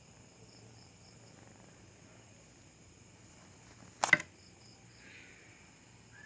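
Faint, steady high chirring of crickets, with one sharp knock about four seconds in.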